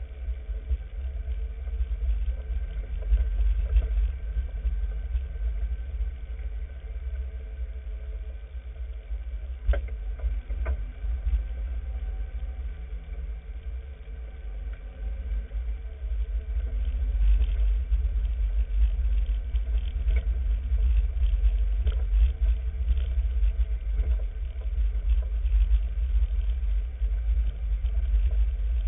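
Off-road vehicle driving slowly over a rough dirt trail: a low engine and body rumble with scattered knocks and rattles from bumps, getting louder about halfway through.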